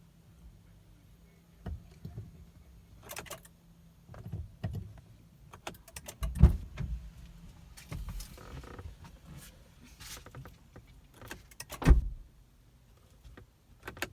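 Scattered clicks and knocks from handling inside a car, with two louder thumps about six and twelve seconds in; no engine starts.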